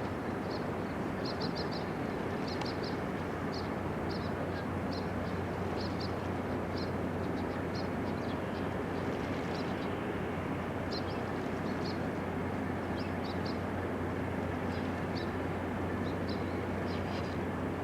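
Steady low hum and rumble of a large cruise ship's engines and machinery, with short high chirps scattered throughout, singly and in small clusters.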